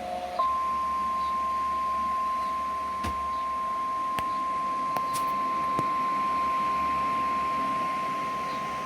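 Emergency alert attention tone: a single steady 1050 Hz warning alarm tone, as used by NOAA Weather Radio, held for about nine seconds ahead of a severe thunderstorm warning. It follows the tail of a two-tone chord that cuts off a fraction of a second in.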